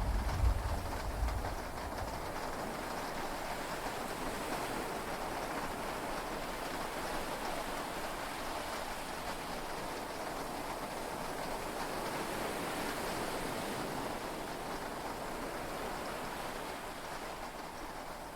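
Heavy rain falling steadily on a yacht's cabin, heard from inside. A deep rumble dies away in the first second or two.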